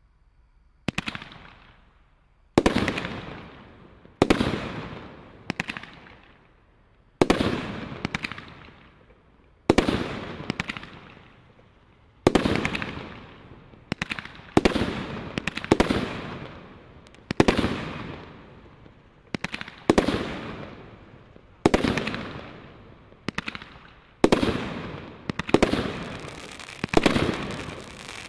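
Brothers Diamond Princess Category 2 combination roman candle barrage firing shot after shot. A sharp bang comes about every one to two seconds, sometimes two in quick succession, and each dies away over a second or so.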